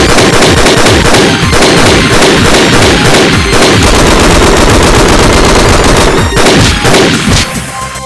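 A long, loud run of rapid cracking bangs with no tune, dying away about seven and a half seconds in.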